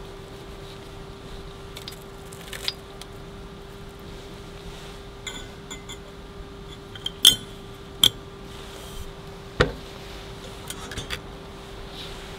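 Small stainless steel tea tins and a loose-leaf infuser basket clinking as they are handled, with two sharp metal clicks a little past the middle as the infuser is fitted into the neck of a steel vacuum flask, then a duller knock. A steady low hum runs underneath.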